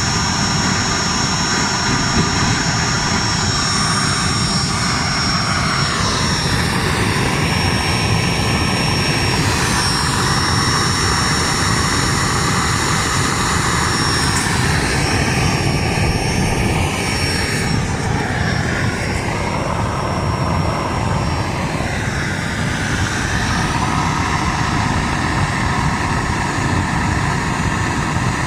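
Disassembled Webasto diesel heater running with its burner open: a steady rushing of the combustion blower and open diesel flame, with a thin high whine that fades out about halfway through.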